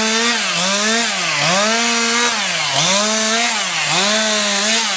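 A chainsaw snedding a felled tree, cutting the branches off. It revs up to a held high pitch, then drops back sharply, over and over, about four cuts in a row.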